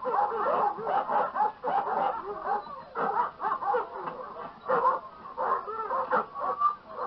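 A dog snarling and barking in an attack: a fast run of short, bending cries packed close together.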